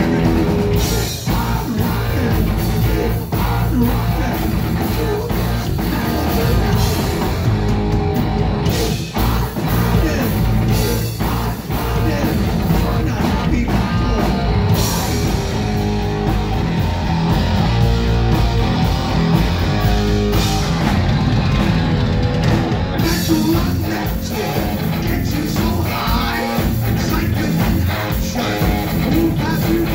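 Loud heavy metal band playing live: electric guitar, bass guitar and drum kit, with a man singing lead vocals.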